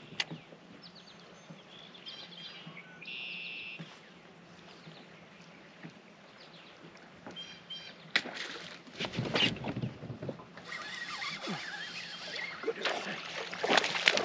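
A few faint bird chirps over a calm lake, then from about eight seconds in a sharp click followed by irregular splashing and knocking on and around a fishing kayak, loudest near the end.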